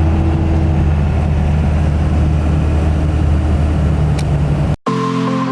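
Steady low drone of a truck driving, with no sharp events. It cuts off abruptly near the end and music begins.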